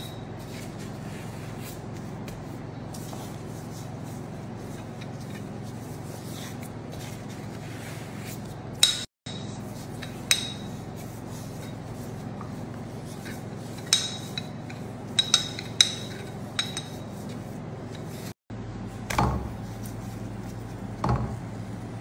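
Kitchen handling sounds over a steady low hum: scattered sharp clicks and knocks of a rolling pin and utensils on a wooden board, and two duller knocks near the end. The hum breaks off briefly twice.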